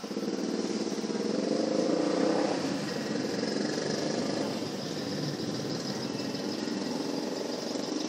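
A steady, low, rasping drone with a fainter high hiss above it, loudest about two seconds in.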